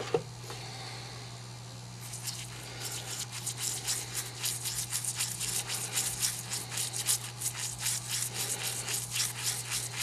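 Toothbrush scrubbing naval jelly over a gilt metal button in quick, repeated brushing strokes, starting about two seconds in. A steady low hum runs underneath.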